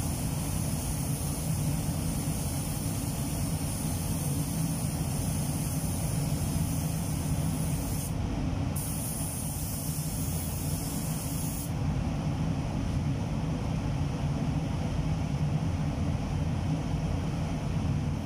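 Compressed-air paint spray gun hissing as it sprays clear coat onto a car panel. It breaks off briefly about eight seconds in, resumes, then stops about four seconds later. Under it runs a steady low mechanical rumble.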